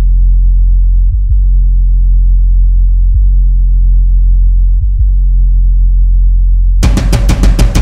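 Music soundtrack: a loud, steady deep bass drone with nothing higher above it, changing level slightly a few times. About seven seconds in, a full drum-kit beat with cymbals kicks in.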